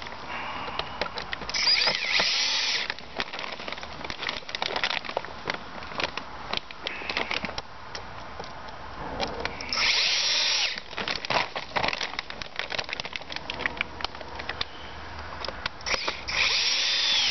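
Cordless drill-driver driving screws through a timber batten into a polytunnel frame, in three short runs of about a second each. Clicks and rustling between the runs.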